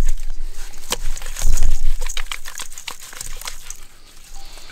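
Wet, salted octopus being handled and rubbed by hand at close range: irregular crinkling and crackling, with a heavy low thump about a second and a half in.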